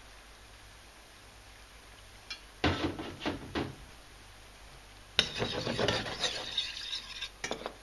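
A metal spoon stirring and scraping in a stainless steel frying pan of chanterelles in cream. A few knocks come about three seconds in, and a longer spell of scraping and clicking follows in the second half.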